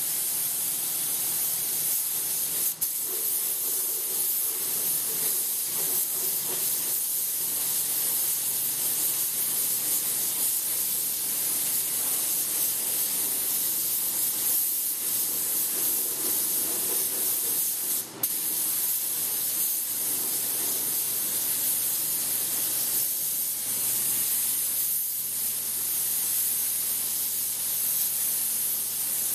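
Gravity-feed compressed-air paint spray gun hissing steadily as it lays orange base coat on a bare 440 engine block. The spray stops for a moment twice, about three seconds in and again about eighteen seconds in, as the trigger is let off.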